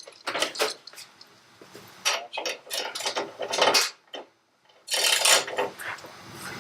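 Metal hand tools clinking and clattering as someone searches for a socket, with a short pause about four seconds in.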